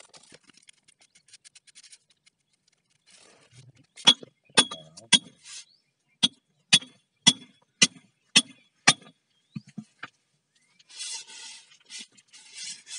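Hammer striking metal: about ten sharp, ringing blows at roughly two a second, followed near the end by a few seconds of scraping.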